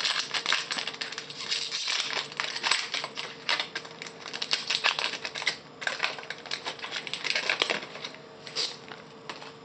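Foil wrapper of a trading-card pack crinkling and crackling as it is torn open and handled by hand: a rapid run of crisp crackles that thins out near the end.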